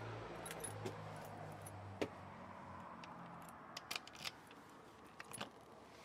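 Keys jangling and clicking at a front-door lock while the door is being unlocked: a few scattered light clicks, with a cluster near the middle and another near the end. A low steady hum lies underneath and fades away.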